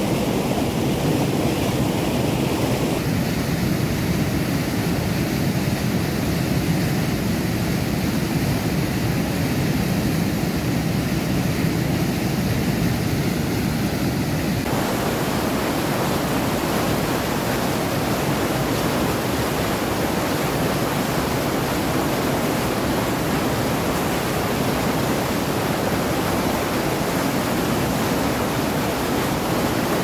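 Waterfall rushing in a steady roar of falling water. Its tone shifts abruptly about three seconds in and again about halfway through, becoming brighter and fuller.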